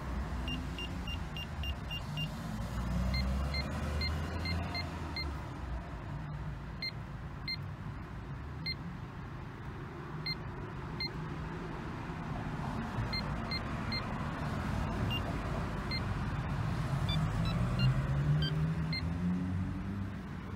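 Short electronic beeps from a Proel KDC 3100 intercom panel's keypad as its keys are pressed: a quick run of higher beeps near the start, then single beeps at irregular intervals, and a few beeps at varying pitches near the end. A steady low rumble runs underneath.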